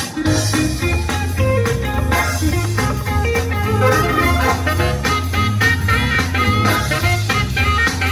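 Instrumental music from a fireworks show soundtrack, with quick plucked-sounding notes over a strong bass line.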